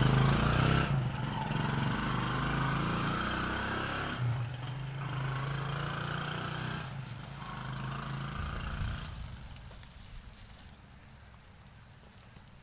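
Motorcycle engine of a motorela passenger tricycle pulling away. Its steady note breaks briefly a few times as it shifts up, then fades into the distance and dies away well before the end.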